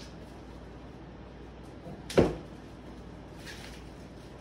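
A single loud clunk about two seconds in as the floor sofa is handled in its box, followed by a softer scraping noise about a second later.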